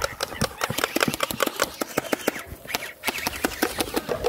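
Gel blasters (hydrogel airsoft guns) firing in rapid bursts, a fast run of sharp mechanical clicks with short breaks about two and a half and three seconds in.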